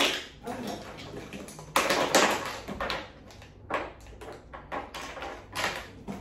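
Plastic makeup containers and tools clattering and rattling as they are rummaged through in a plastic storage box, in irregular bursts.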